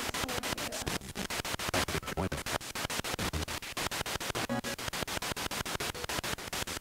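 Spirit box sweeping through radio stations: choppy static with snatches of broadcast, cut about eight to nine times a second.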